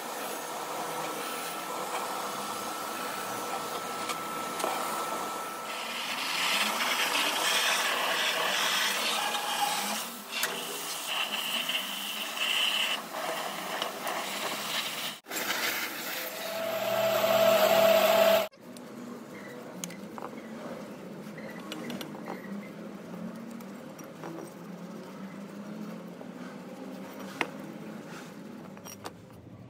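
Pressure-washer spray hissing against the metal drill press column and parts. It stops suddenly about two-thirds of the way through. Then comes quieter scratchy rubbing of a scouring pad over the wet drill press head casting.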